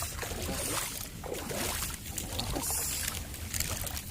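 Water sloshing and splashing around feet wading through shallow tidal water, over a steady low rumble.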